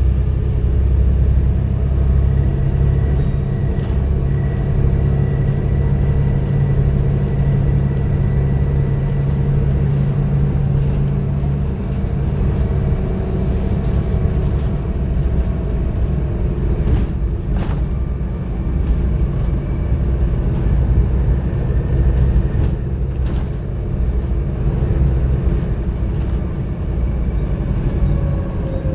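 Volvo B7TL double-decker bus's diesel engine and drivetrain running under way, heard from the upper deck as a steady low drone whose note changes about twelve seconds in. A few brief knocks and rattles from the bus body come through in the second half.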